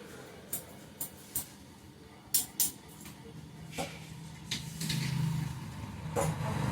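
A scattered series of short sharp clicks, then a motor vehicle's engine growing louder from about halfway in as it approaches.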